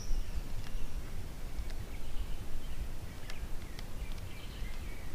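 Low, uneven rumble with faint bird calls and a few soft clicks scattered through.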